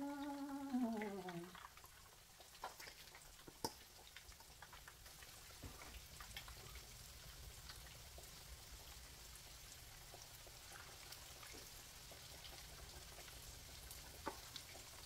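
Chicken pieces deep-frying in oil over low heat: a faint, steady crackle with a few sharper pops. Over the first second and a half a long vocal sound falls in pitch.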